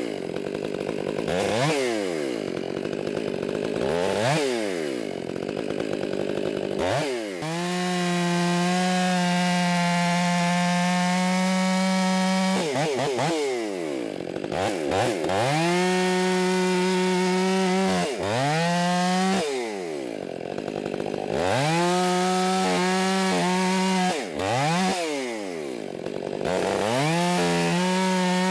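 Fuel-injected two-stroke chainsaw bucking cherry logs into firewood. Over the first several seconds it is revved in quick bursts that rise and fall, then it is held at a steady high pitch through about five cuts lasting two to five seconds each, dropping back briefly between them.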